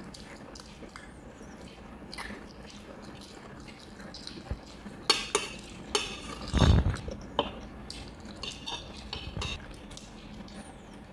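Cutlery clinking against a dish in scattered, irregular taps, with one louder dull thump about six and a half seconds in.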